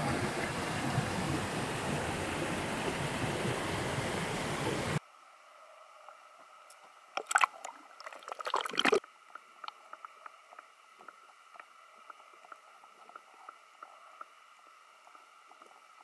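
Mountain stream rushing steadily, cutting off abruptly about five seconds in. After that a much quieter background, with a brief cluster of loud clicks and rattles about seven to nine seconds in and scattered faint ticks.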